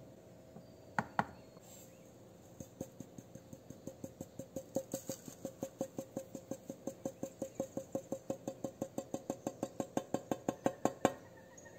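Two clicks of a steel bowl against a stainless steel cup, then a long run of rapid, even metallic ticks, about six a second and growing louder, as dry sand is shaken out of the bowl into the cup on a kitchen scale. This is the dried sand fraction of a soil sample being weighed.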